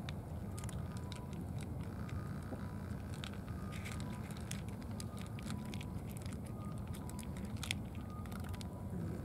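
Cats crunching dry kibble from a plastic bowl: irregular sharp crunches and clicks over a steady low rumble.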